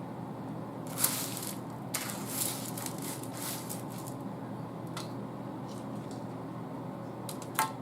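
Crisp baked corn tortilla chips crunching and crackling as a spoon scoops and breaks through a tray of cheesy nachos, in a few short bursts, with a sharp click near the end.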